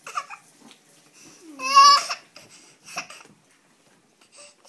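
A one-year-old baby vocalizing: brief babble near the start, then one loud, high-pitched call about half a second long near the middle, rising in pitch as it starts.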